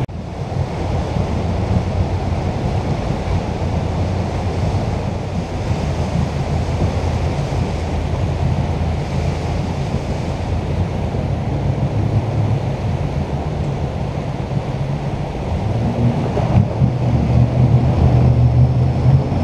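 Jet boat engine running with rushing water and wind buffeting the microphone, a steady low hum under a broad wash of noise; it grows louder near the end.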